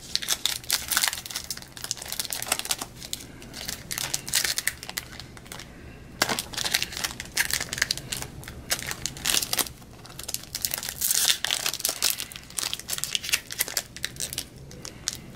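Foil wrapper of a trading-card pack crinkling and tearing as it is worked open by hand: a dense, irregular run of crackles.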